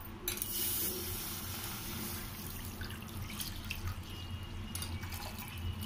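About half a litre of milk poured in a steady stream from a vessel into a nonstick kadai, a continuous splashing pour that starts about a quarter second in.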